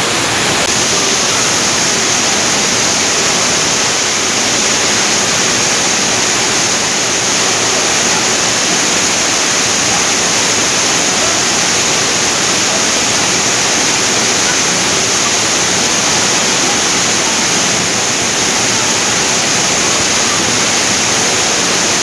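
Waterfall pouring down close over the microphone: a loud, steady rush of falling water.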